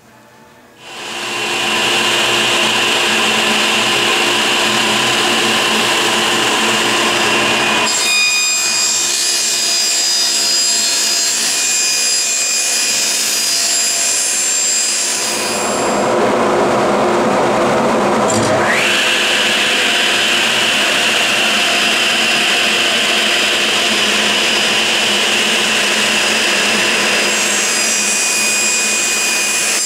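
Table saw running and cutting plywood sheets. It comes in about a second in, and its tone shifts a few times as the cuts go on, with a short rising sweep about halfway through.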